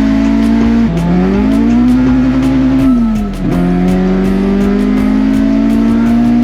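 Car engine revving hard under acceleration. Its pitch drops sharply about a second in and climbs again, then falls around three seconds in and rises steadily once more, like gear changes under load.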